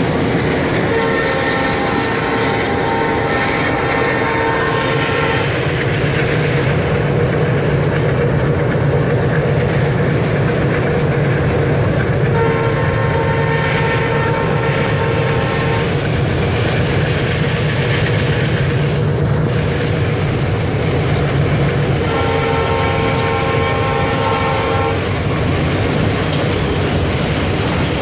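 Indian Railways diesel locomotive running, heard from inside its cab: a steady engine rumble with wheel and rail noise. The locomotive's air horn sounds in three long blasts of about four seconds each: near the start, in the middle and a few seconds before the end.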